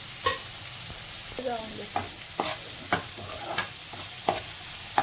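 Metal spoon stirring chopped onion and squid frying in oil in a frying pan, scraping and knocking against the pan about every half second over a steady sizzle, with a short squeak of the spoon on the pan about a second and a half in.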